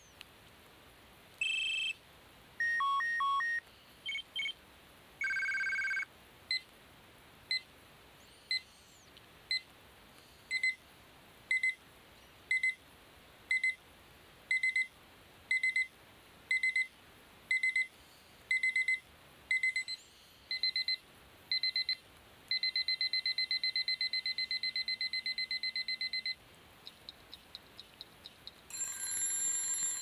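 Built-in electronic ringtones of a Casio G'zOne TYPE-X flip phone, previewed one after another through its speaker. A few short beep patterns come first. Then a beep repeats about once a second, growing louder and then faster until it becomes a continuous rapid trill. A different tone pattern starts near the end.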